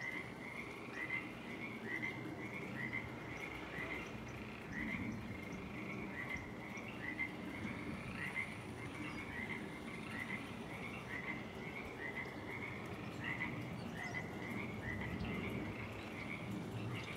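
A chorus of frogs calling at dusk: many short, repeated croaking calls overlapping steadily, over a low background rumble.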